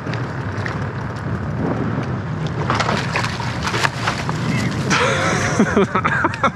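A hooked fish splashing at the surface beside the boat as a landing net scoops it, a run of sharp splashes a little before the middle, over steady wind noise on the microphone. Voices call out near the end.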